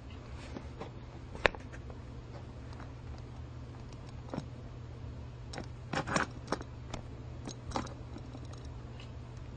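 Scattered light clicks and clatters of small hard objects over a steady low hum, with one sharp click about a second and a half in and a quick cluster of clatters around six seconds in.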